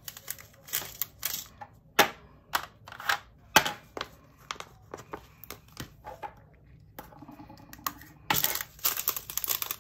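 Hard plastic clicks and taps from small clear drill storage containers and their snap lids being handled, with plastic bag rustling. Near the end a denser run of rustling and clicking lasts about a second and a half.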